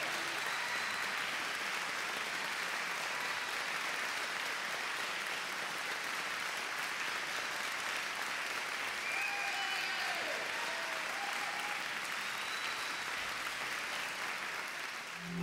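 Crowd of wedding guests applauding steadily, with faint voices calling out here and there.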